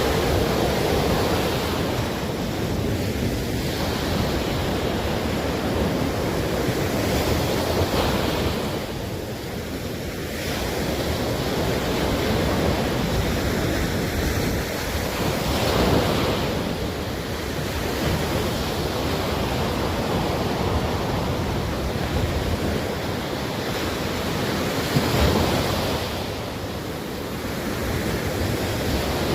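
Atlantic Ocean surf at the shoreline: a continuous wash of breaking waves that swells about every eight seconds as a wave breaks, with wind on the microphone.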